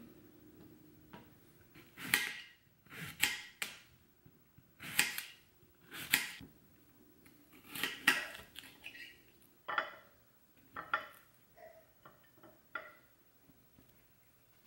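Knife cutting through a cucumber on a granite countertop: about a dozen short, sharp cuts at an uneven pace, a second or so apart, the last few fainter.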